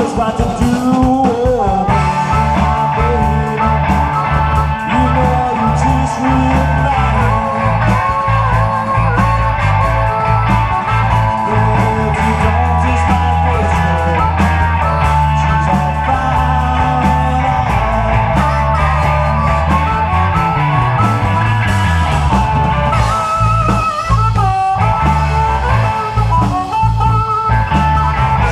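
Live blues band playing an instrumental break: electric guitar with a bending lead line over bass guitar and drum kit.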